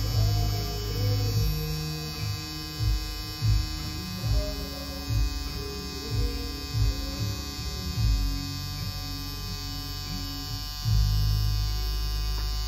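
Electric cartridge tattoo machine buzzing steadily as it inks lines into skin, with background music playing over it.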